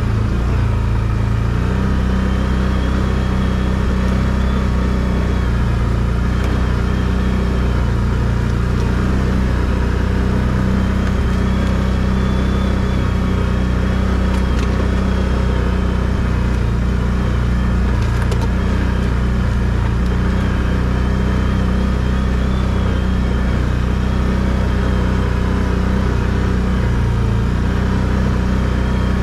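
ATV engine running steadily as the quad is ridden along a dirt forest trail: a constant low drone with a faint high whine that comes and goes.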